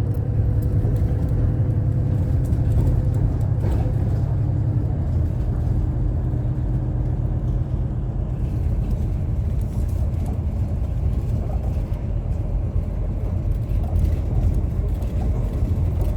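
Steady low rumble of a moving vehicle, with a faint hum that fades out about halfway through.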